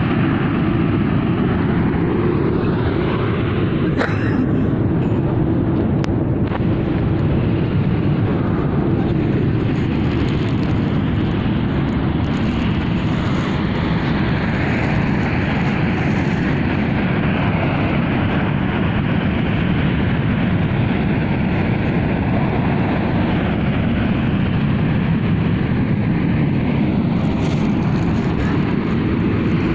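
A steady, loud, low rumbling roar from the mountain, unbroken and without rhythm, the unexplained 'strange sound' the mountain is said to make.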